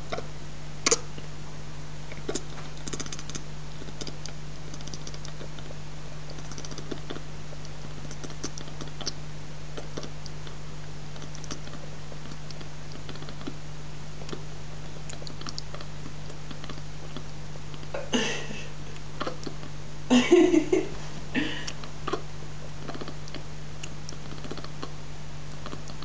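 Cat chattering while it stares out through window blinds: scattered soft jaw clicks, with a louder run of chirping chatter about two-thirds of the way in. This is the sound a cat makes when it is fixed on prey outside that it cannot reach. A steady low hum runs underneath.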